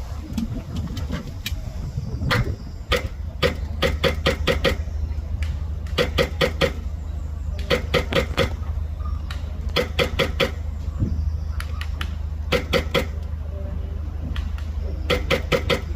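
Airsoft rifle firing short, rapid strings of shots, each string a quick run of sharp clicks, repeated every second or two. A steady low wind rumble on the microphone runs under it.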